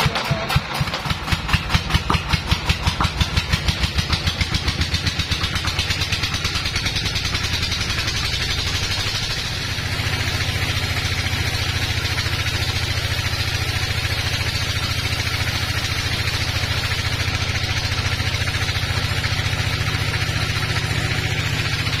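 Engine of a band sawmill running while a log is sawn, with a fast, even throbbing for the first several seconds that settles into a steady run after about ten seconds.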